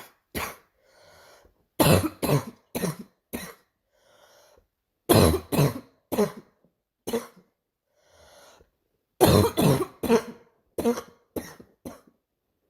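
A girl coughing in repeated fits of three to six sharp coughs each, about three fits, with short quieter breaths in the gaps between them.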